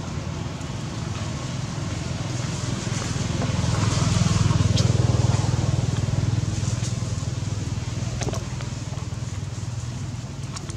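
A motor vehicle's engine running with a low hum, growing louder about three seconds in and fading slowly over the following seconds, as when a vehicle passes.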